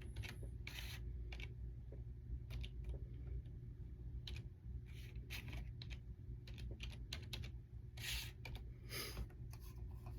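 Typing on a computer keyboard: an irregular scatter of key clicks over a steady low hum.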